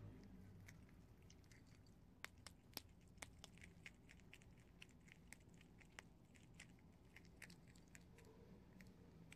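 Prairie dog gnawing on dry, uncooked instant ramen noodles: a faint, irregular run of small sharp crunches, starting about two seconds in.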